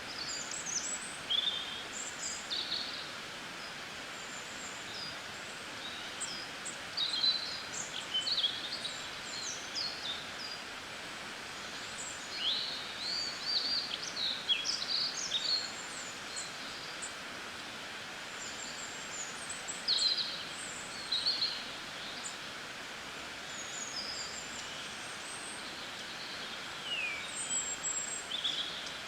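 Small songbirds chirping and singing in quick, high, twittering phrases. The calls come in clusters with short lulls between them, over a steady background hiss.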